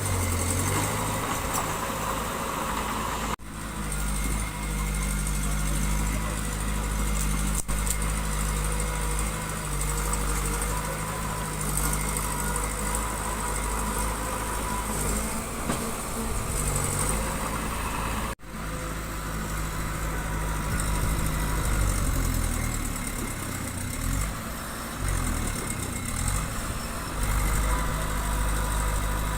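Diesel engine of heavy construction machinery running, its speed rising and falling a few times. The sound cuts out abruptly twice.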